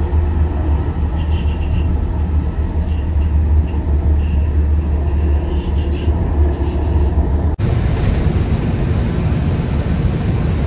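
Steady outdoor rumble of road traffic, heaviest at the low end, with faint high tones over it; it breaks off abruptly about seven and a half seconds in and picks up again in a second, similar recording.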